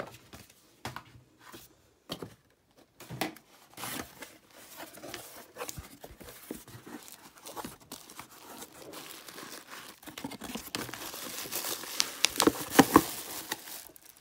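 Wrapping being torn and crinkled by hand as a parcel is unwrapped: scattered light rustles and handling clicks at first, then steadier crinkling and tearing for the last few seconds.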